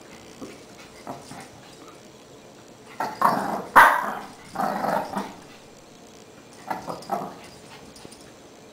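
Shih Tzu puppy barking and growling in play while she spins after her tail: a couple of short yaps in the first second or so, a loud run of barks about three to five seconds in, and two more barks near the end.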